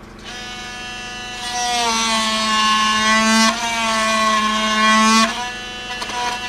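Handheld power tool's electric motor running against wooden hull planking, a steady whine that drops in pitch as it bites into the wood and rises again when it eases off about five seconds in.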